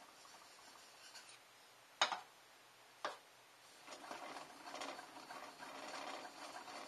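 Makiri knife blade being stroked on a whetstone: a gritty scraping of steel on stone. Two sharp clicks come about two and three seconds in, then quick repeated strokes carry on more strongly to the end.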